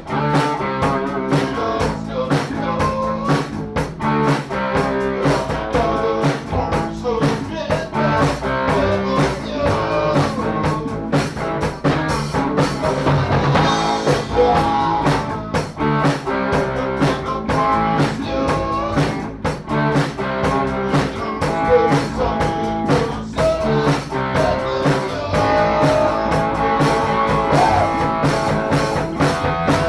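A drum kit played along with rock music, steady throughout with frequent drum and cymbal hits.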